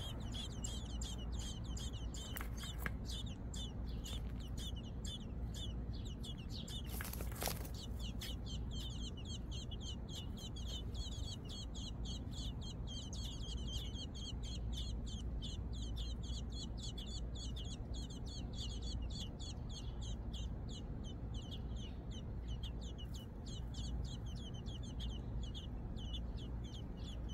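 American robin nestlings begging at the nest: an unbroken run of short, high peeps, about three or four a second. A brief rustle sounds about seven seconds in, over a steady low hum.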